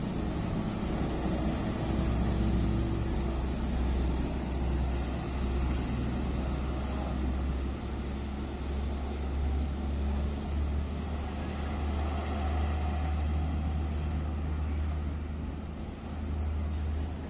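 Light diesel cargo trucks running in a steady low rumble as they pull slowly away across the forecourt.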